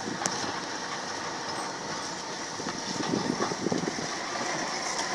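Steady road and engine noise of a moving vehicle heard from inside, a little louder and more uneven around the middle.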